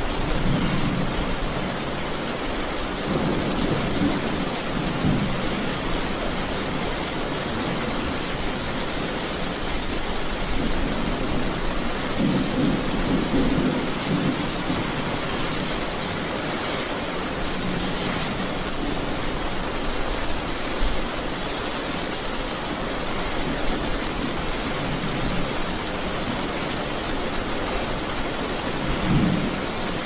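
Steady rain falling, with low rumbles of thunder that swell and fade several times.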